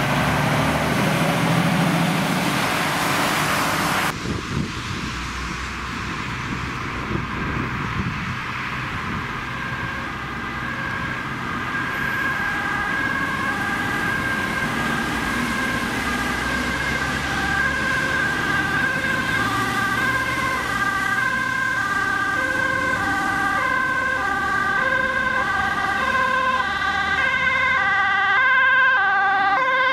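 Road traffic noise for the first few seconds, cut off abruptly. Then a Dutch ambulance's two-tone siren, alternating high and low, grows steadily louder as the ambulance approaches.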